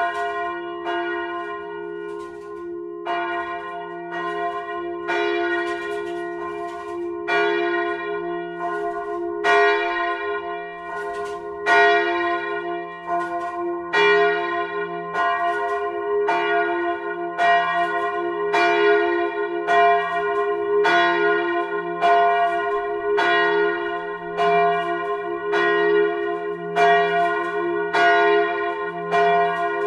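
Large swinging church bell, the F1 bell cast by Petit & Fritsen in 1948 and hung on a straight headstock, ringing solo. The clapper strikes about once a second from the first stroke at the start, each stroke ringing on over a steady low hum.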